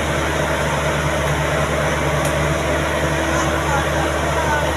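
Combine harvester running steadily, a loud, even mechanical hum with a single click about two seconds in.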